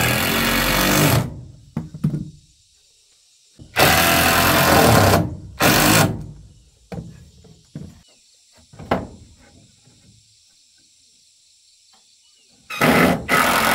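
Cordless drill driving screws through a wooden plank into a post, running in several short bursts, with a few light knocks of wood between.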